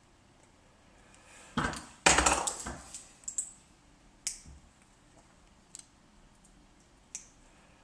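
Small hand tools being handled while thin wire ends are prepared: a loud clatter and rustle about two seconds in, then a few sharp, separate clicks from small pliers working the wire.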